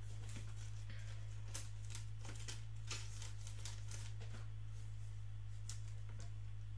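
Faint, scattered crinkles and clicks of a Topps Finest basketball card pack's wrapper being handled, over a steady low electrical hum.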